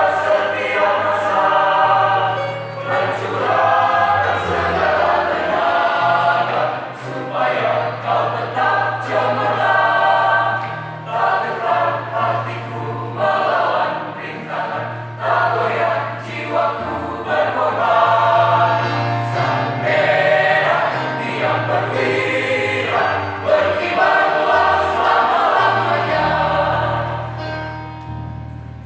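High school choir singing an Indonesian patriotic song in several parts, with long held chords; the singing dies away near the end.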